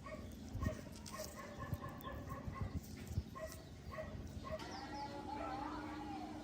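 A dog yipping in quick short calls, two or three a second, then giving a longer wavering whine, with a few light taps underneath.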